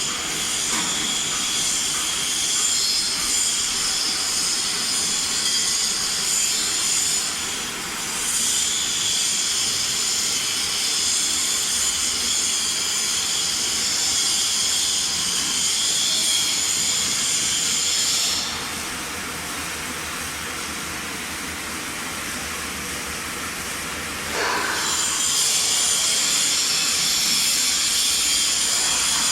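CNC metal spinning machine at work: a steady high-pitched hiss and squeal with several held high tones. It breaks off briefly about eight seconds in, then drops quieter for about six seconds past the middle before coming back.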